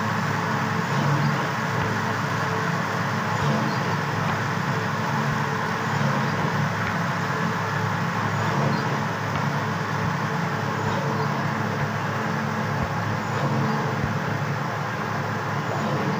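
Steady din of workshop machinery running: a continuous low hum with a rushing noise over it, with no distinct strokes.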